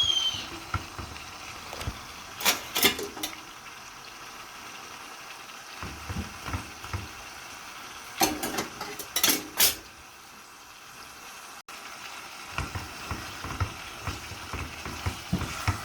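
Saltfish and seasonings cooking in a pot: a steady sizzle, with a few clusters of sharp clinks of a utensil against the pot.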